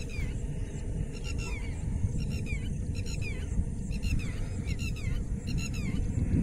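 Low rumble of wind on the microphone, with birds calling over the wetland in repeated short, falling notes, several at once.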